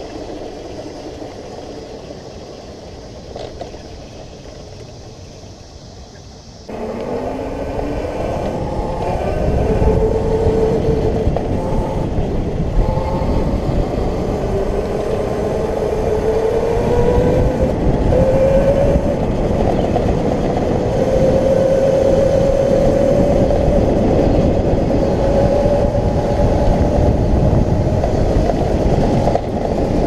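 Electric ride-on kart's motors and gearing whining as it drives along a paved path, over a steady rumble of the tyres. Quieter at first, then about seven seconds in the sound jumps up suddenly and the whine starts low and climbs in pitch, holding a high note with small rises and dips as it speeds along.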